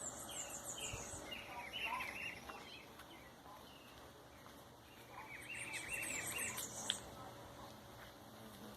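A songbird singing in two bouts of quick, repeated high chirps, the first at the start and the second about five seconds in, over faint background noise.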